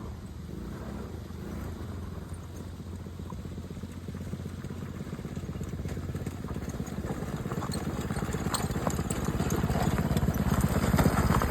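ATV engine running with a rapid low pulsing, growing steadily louder over the second half.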